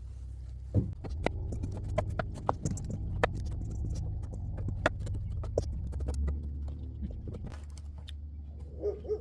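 Kitchen knife chopping large raw carrots on a cutting board: a run of sharp, irregular knocks, two to four a second, that stops about a second before the end.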